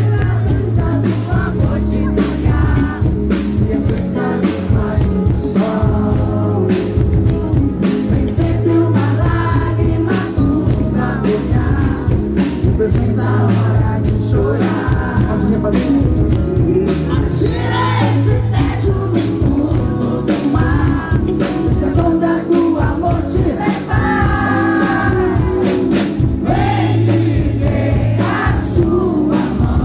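Live band music through a PA: a man singing into a microphone over electric guitar, bass and drum kit, with a steady beat.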